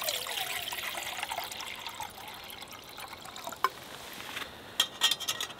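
Water poured from a bottle into a metal camping pot, filling it. Near the end come several sharp metallic clinks as the pot is handled onto the stove.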